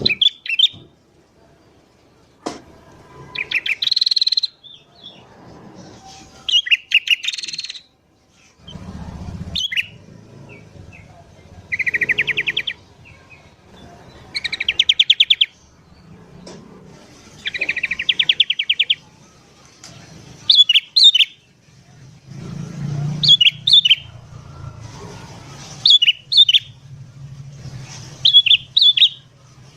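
Sooty-headed bulbuls calling: short, sharp whistled notes alternating with harsh chattering rattles about a second long, repeated every few seconds. A low rumble comes and goes under the calls in the second half.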